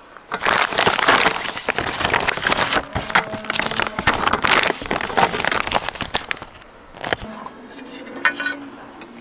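Meal-kit packaging, a foil-lined paper bag and plastic pouches, crinkling and crackling as it is torn open and handled. After about seven seconds it gives way to a few quieter knocks and clicks.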